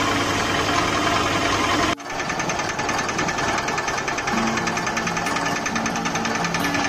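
Combined rice mill, destoner and vibro sifter running, its vibrating sieve deck chattering in a fast, even rattle as grain flows across it. The sound breaks off sharply about two seconds in and picks up again at once.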